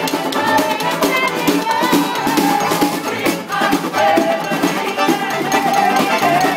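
Live band playing a pop song, with a melody line over a steady percussion beat.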